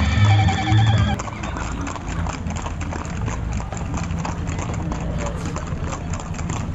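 Music with a heavy bass beat for about the first second, cut off abruptly. Then the steady, rapid clatter of many horses' hooves.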